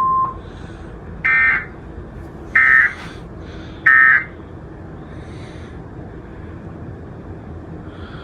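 Emergency Alert System (EAS) broadcast signal: a steady beep-like tone cuts off just after the start, then three short, harsh digital SAME data bursts about a second and a half apart. These are the end-of-message code that closes the alert.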